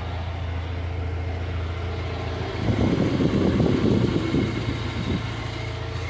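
Volkswagen Jetta Mk3 2.0 four-cylinder engine idling, a steady low hum, with both radiator fans spinning. The fans and their newly fitted linking belt are not noisy. A louder rushing noise swells for about two seconds midway.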